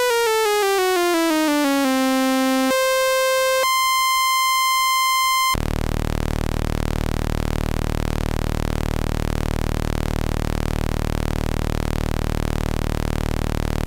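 DIY CS-style voltage-controlled oscillator, unfiltered: a bright, buzzy tone gliding down in pitch and settling, then switching to cleaner steady tones that step up in pitch. About five and a half seconds in it drops to a very deep buzz held steady.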